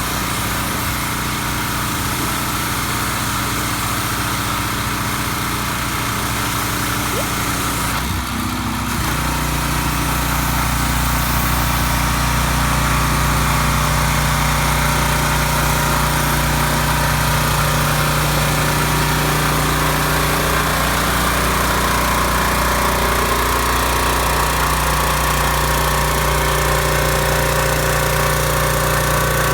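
Generac 3100 psi gas pressure washer's small engine running steadily; about 8 seconds in the sound briefly breaks and then carries on a little louder.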